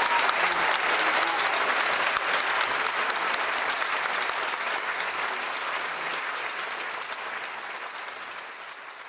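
Audience applauding, a dense steady clatter of clapping that grows gradually fainter toward the end.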